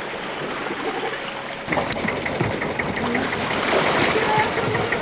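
Water sloshing at first. Then, about two seconds in, a boat's engine comes in abruptly and runs with a regular knocking, about five ticks a second.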